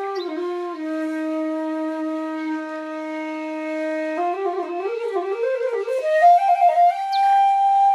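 Flute music: a slow melody holds one low note for about three seconds, then climbs in quick steps and settles on a higher held note near the end.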